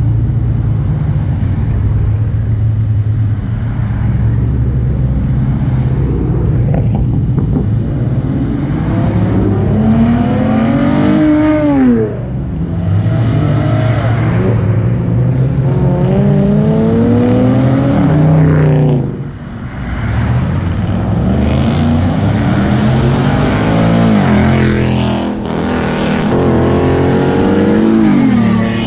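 Cars, including Dodge Chargers and a Chevrolet Camaro, accelerating past one after another, their engine notes climbing in pitch as each one revs up, over a steady low rumble of traffic. Several separate climbs follow in turn, the loudness dipping briefly between passes.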